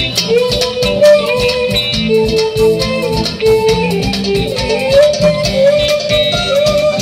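Live band playing an instrumental passage of an Egyptian pop song: a gliding melody line over guitars, bass and hand percussion, with no vocals.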